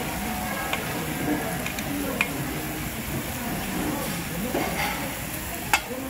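Thin slices of beef sizzling on a ridged grill pan over a tabletop burner. There are a few sharp clicks of metal tongs against the pan as the meat is turned, the loudest near the end.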